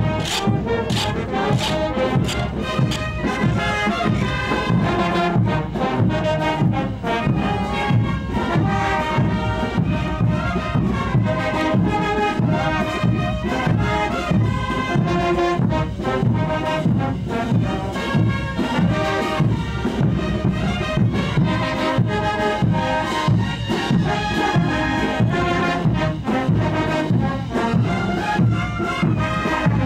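Brass band playing a lively dance tune, with horns over a steady, regular beat of drums and percussion.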